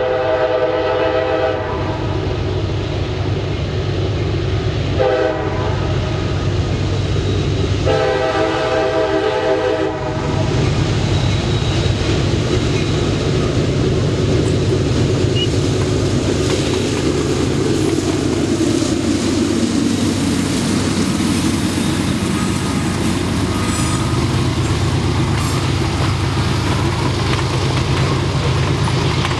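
CSX freight train led by an EMD SD40-2 diesel locomotive sounding its horn for a grade crossing: a long blast, a short one about five seconds in, and another long one about eight seconds in. The locomotives' diesel engines then rumble past, followed by loaded covered hopper cars rolling by with wheel clatter.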